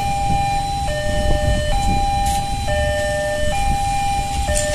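Railway level-crossing warning alarm sounding, an electronic signal alternating between a high and a low tone about once a second, warning of an approaching train. Idling car engines rumble underneath.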